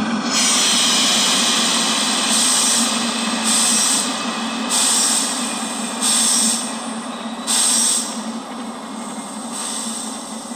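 Recorded diesel locomotive shutdown sounds played through a small speaker from a model loco's digital sound unit. A long air hiss is followed by five short air blasts about every second and a bit, over a steady low hum. This is the locomotive sitting shut down and blowing off air every so often.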